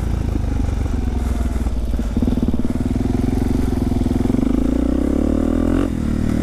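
Supermoto motorcycle engine running under throttle while riding across grass. Its pitch dips briefly about two seconds in, climbs steadily, then falls off suddenly near the end as the throttle is closed.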